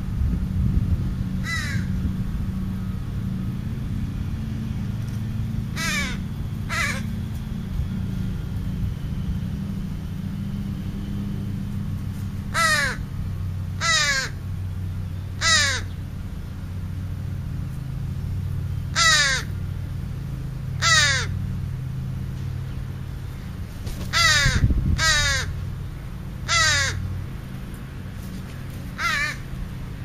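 Crows cawing: about a dozen short, harsh caws, some single and some in quick pairs, repeated every few seconds over a low, steady rumble.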